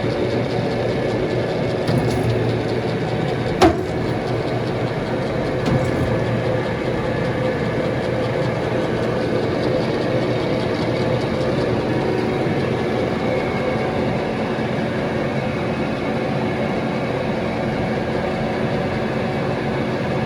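Warner & Swasey 4A turret lathe running under power with a steady mechanical hum made of several held tones. A single sharp click comes a few seconds in, with a couple of lighter knocks around it.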